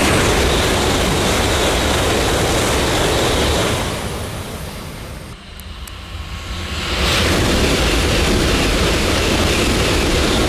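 E5-series Shinkansen bullet trains passing at high speed: a loud, steady rush of noise that fades about four seconds in, then a second train rushes past from about seven seconds in.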